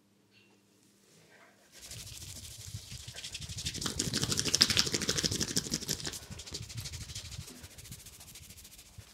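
Hands rubbing briskly through hair and over the scalp during a head massage: a fast, scratchy rustle that starts about two seconds in, is loudest midway and tapers off near the end.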